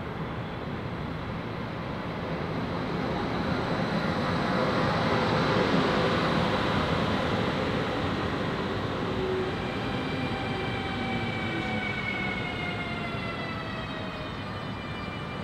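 Siemens ES 64 F4 (class 189) electric locomotive passing close by, the rush of its wheels on the rails swelling to a peak about six seconds in and easing as it draws away. In the second half a whine of several stacked tones falls steadily in pitch.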